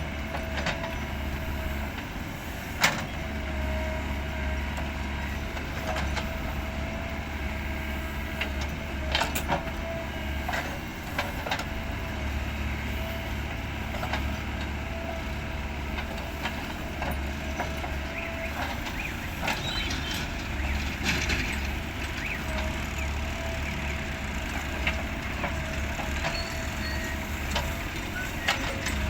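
Cat 424B2 backhoe loader's diesel engine running steadily under working load, with a steady whine over the drone. Sharp knocks and clanks come at irregular intervals, the loudest about three seconds in.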